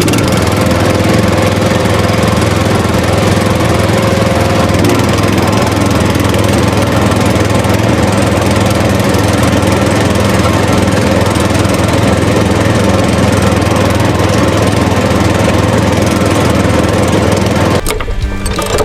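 A motor running steadily and loudly, cutting off abruptly near the end.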